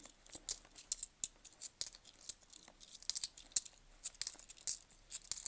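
10p coins clinking against one another as they are handled and sorted: a quick, irregular run of light metallic chinks.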